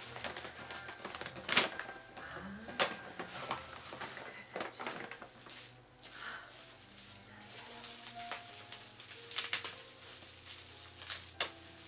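Clear plastic wrapping crinkling and crackling as a gift is unwrapped by hand, in irregular sharp crackles with a few louder snaps.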